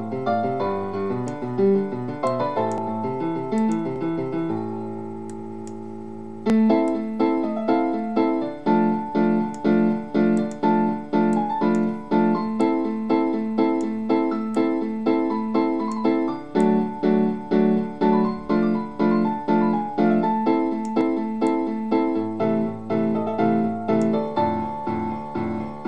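Background piano music. A held chord fades out about four seconds in, then repeated chords at about two a second carry on to the end.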